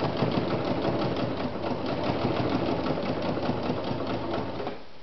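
Vesna Bagat 703 sewing machine with its 100-watt motor running at a fast, even stitch, the needle punching through folded boot leather; it stops abruptly near the end.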